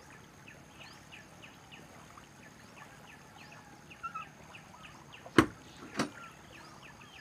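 Small birds calling, short high falling chirps repeated about twice a second, over a faint steady high-pitched tone. Two sharp clicks about half a second apart, a little past five seconds in, are the loudest sounds.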